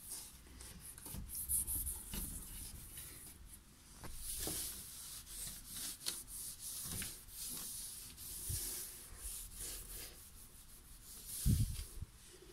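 A damp cloth wiping a painted wooden door, in repeated hissing rubbing strokes, with a dull bump near the end.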